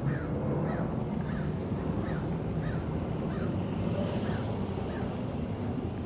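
A bird calling over and over, about two short calls a second, fading out about three and a half seconds in, over a steady low background hum.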